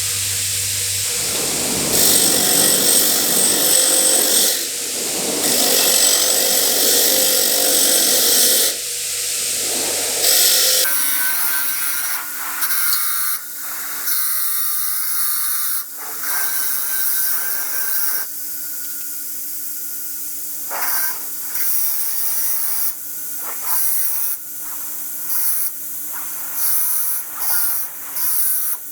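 Power tools working the rusty steel of a pair of pincers. A loud abrasive whirr runs for the first ten seconds or so; then the sound changes abruptly to a quieter steady motor hum, broken by short scraping bursts every second or two.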